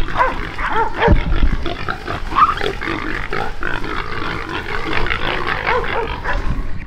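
Feral hog squealing and grunting loudly and without a break.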